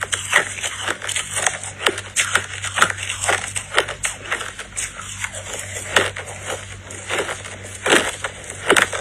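Close-miked chewing of big chunks of crushed ice: dense, irregular crunching and cracking as the ice is bitten and broken in the mouth.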